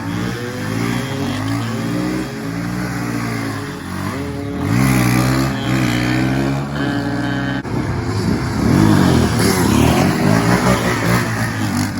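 A small off-road vehicle engine running and being revved: its pitch climbs a little over four seconds in, then swings up and down rapidly with repeated throttle blips later on.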